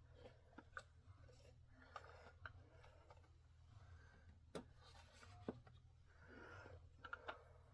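Faint handling of Atari game cartridges in a cartridge storage rack: a few light plastic clicks and soft rubbing as the cartridges are moved, over a low steady hum.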